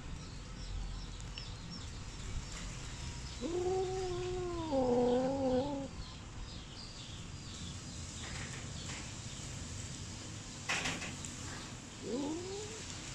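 A domestic cat meowing twice: one long, drawn-out meow about three seconds in that dips in pitch toward its end, and a short rising meow near the end. A single sharp knock comes shortly before the second meow.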